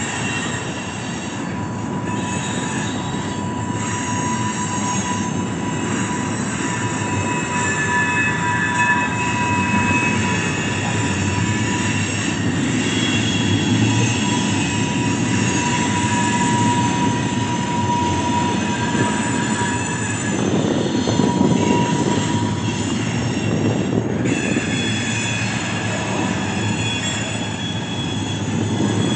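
Freight train flatcars rolling past on the curve of a wye, with a steady rumble of wheels on rail. Wheel flanges squeal in several high tones that come and go, with one steady tone through most of the first two-thirds.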